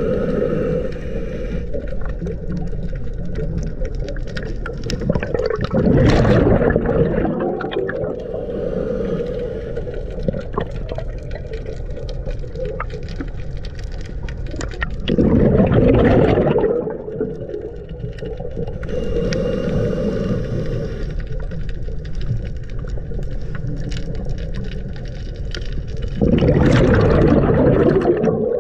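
Scuba diver breathing underwater through a regulator: a faint hiss on each inhalation, then a loud rush of exhaled bubbles. The bubble rush comes three times, roughly ten seconds apart: about six seconds in, around the middle, and near the end.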